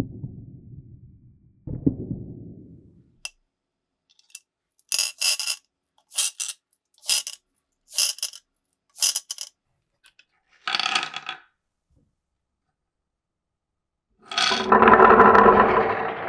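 Marbles running through a wooden marble run: a few knocks that fade into rolling, then five short, bright clattering clinks about a second apart, and near the end a louder continuous rolling and rattling as more marbles run down the track.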